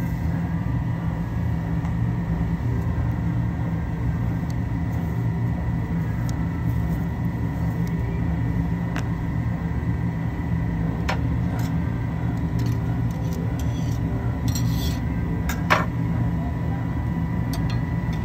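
Steady machinery hum with a faint high steady whine over it. A few light clicks come from handling the circuit board in its metal fixture, and there is one sharper click about 16 seconds in.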